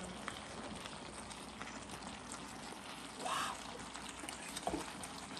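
Spicy chicken dakgalbi simmering in a wok, a steady low sizzle and bubble. A short breathy sound from the eater comes about three seconds in, and a small click near the end.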